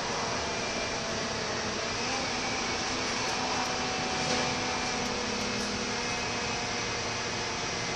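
Interior noise of a Scania K230UB single-decker bus on the move, heard inside the passenger saloon: the rear-mounted engine's steady drone under road and tyre noise, its note changing slightly midway.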